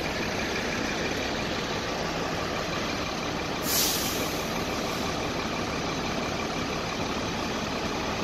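Heavy diesel fire apparatus idling steadily. About four seconds in comes a short, loud hiss of released air.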